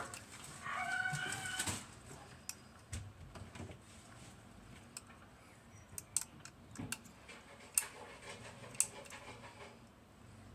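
Small metal clicks and taps of picking tools working inside a lever lock, scattered and irregular, as a stubborn back lever holds the lock up. Near the start a brief high pitched whine of about a second is the loudest sound.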